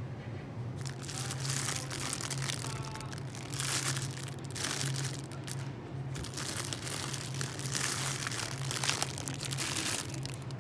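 Plastic grocery packaging crinkling and rustling in repeated bursts as it is handled, over a steady low hum.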